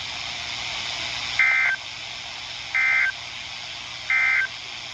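NOAA Weather Radio EAS end-of-message: three short bursts of SAME data tones, a two-tone warble, with about a second between them, over a steady hiss. The bursts mark the end of the special marine warning broadcast.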